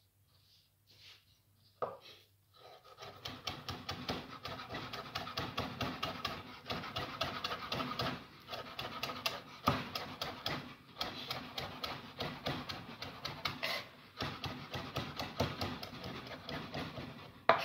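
Kitchen knife rapidly chopping chives on a wooden cutting board: a fast, even run of knocks several a second, starting about three seconds in with only brief pauses.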